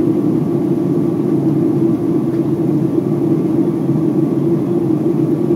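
Steady cabin drone of a jet airliner in flight, heard from inside at a window seat: an even mix of engine and airflow noise, strongest in a low hum, with no change.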